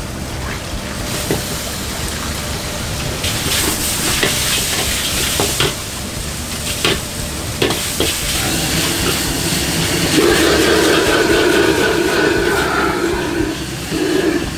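Beef and flat rice noodles sizzling in a wok while a metal wok spatula scrapes and clanks against it, with several sharp knocks between about four and eight seconds in. From about ten seconds in the gas wok burner's flame gets louder and holds steady.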